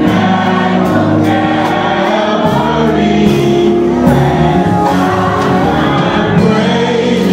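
Gospel choir singing with instrumental accompaniment: sustained voices and chords over a steady beat.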